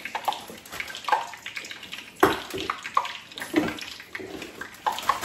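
Plastic bag crinkling and rustling in irregular crackles as it is handled and opened, over a steady hiss.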